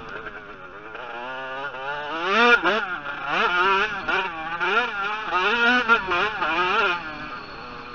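Motocross bike engine heard on board, revving up and down again and again as the rider works the throttle through the gears. It is lower and steadier at the start and again near the end.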